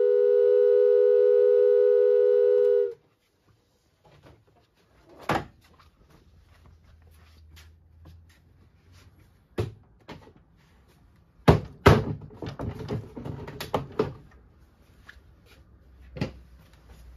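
Hand-cranked organ holding its final chord for about three seconds, then cutting off sharply. Scattered knocks and clicks follow, with a cluster of them near the end.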